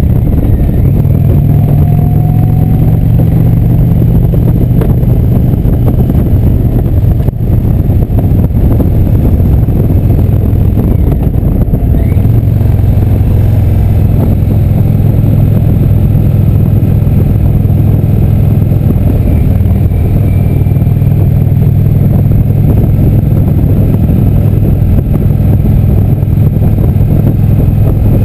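Indian motorcycle's V-twin engine running steadily under way. The engine sound dips briefly about seven seconds in, and the engine note changes around twelve seconds in.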